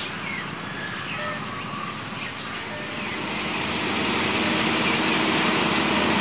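A General Electric UM12C diesel-electric locomotive approaching. Its engine sound grows steadily louder from about halfway through, with a steady low hum coming up.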